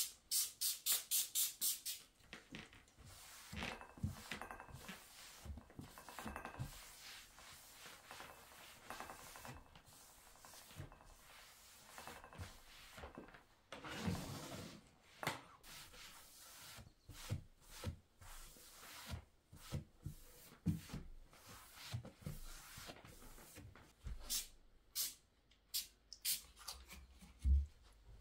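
Trigger spray bottle of cleaner squirted about eight times in quick, even succession. Then a cloth rubs over a wooden table top, with light knocks, and a few more squirts come near the end.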